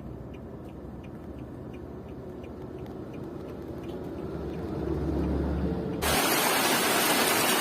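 A low rumble with faint regular ticks, then about six seconds in heavy rain starts abruptly as a loud, steady hiss.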